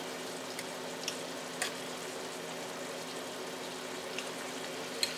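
Steady low sizzle of a skillet of onion, spinach, garlic and diced tomatoes cooking on the stove, with a few faint clicks of a metal fork against a glass baking dish as baked chicken is pulled apart.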